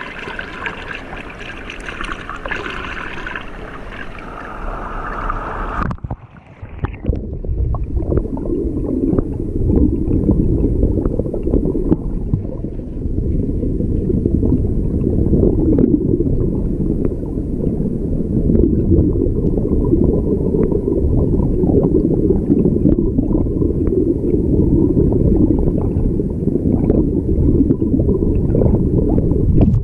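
Stream water flowing around a small whirlpool. About six seconds in, the sound drops to a muffled, low rush and gurgle as heard from under the water, with small ticks scattered through it.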